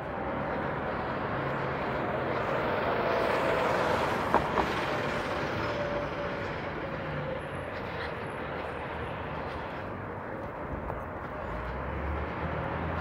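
City street traffic with a heavy vehicle passing close. It swells to its loudest about four seconds in with a whining tone, then fades. Two sharp knocks come just after the peak.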